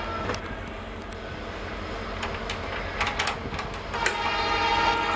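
EMD WDP4B diesel locomotive approaching at the head of an express train, its engine running with a steady low rumble, with a few sharp clicks. About four seconds in, its multi-tone horn starts sounding and gets louder.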